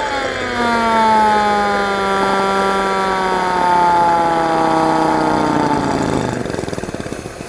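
High-pitched engine whine, made as a Formula 1 sound effect, falling slowly in pitch as the revs drop. It stops about six seconds in, leaving a rough, uneven engine rattle.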